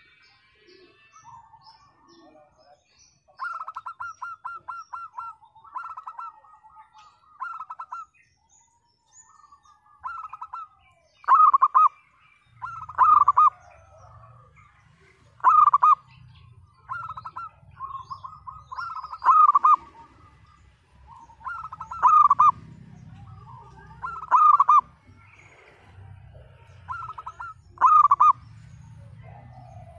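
Zebra dove (perkutut) cooing in phrases of quick staccato notes. A few seconds in comes a run of about eight rapid notes, then short loud bursts every couple of seconds from about a third of the way in. A low hum sits beneath from about halfway.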